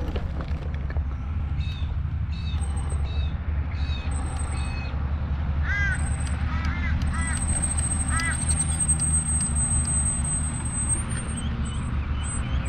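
Birds calling in short repeated calls, a run of them early and a few arching calls a little after the middle. Under them is the steady low rumble of the power-assisted wheelchair rolling along the path. A thin high whine holds through the middle.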